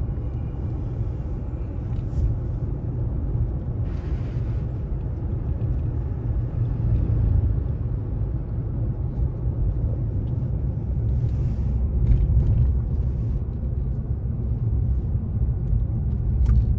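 Steady low rumble of a car driving on a road, heard from inside the cabin, with a few brief hissing swells in the road noise.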